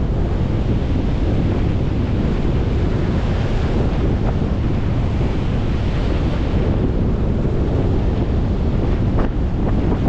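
Wind rumbling on the microphone over the steady wash of rough surf breaking and churning around the pier's legs.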